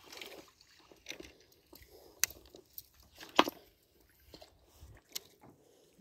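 Scattered short, splashy pops and clicks from a Yara Shotgun 90 popper lure being jerked across the water surface to draw up a peacock bass; the loudest pop comes about three and a half seconds in.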